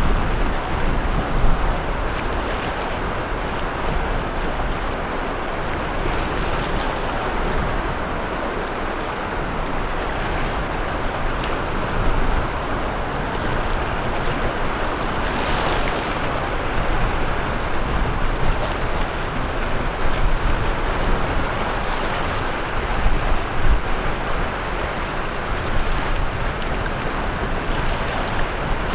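Ocean surf breaking and washing up a beach as a continuous, steady rush of waves, swelling louder for a moment about halfway through.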